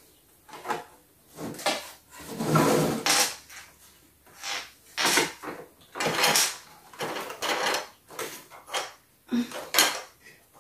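Plastic toy dollhouse parts being handled: snap-in window pieces pushed, scraped and knocked against the plastic wall frame as they are worked into place, a string of irregular knocks and scrapes with a longer scrape about two and a half seconds in.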